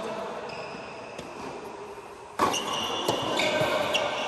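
Tennis ball struck by rackets several times during a doubles rally on an indoor hard court, with the hall's echo. About two and a half seconds in the sound gets suddenly louder, with high squeaking tones over the hits.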